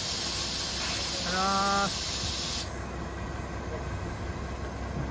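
Coach bus idling with a steady low hum, under a loud hiss that cuts off suddenly about two and a half seconds in.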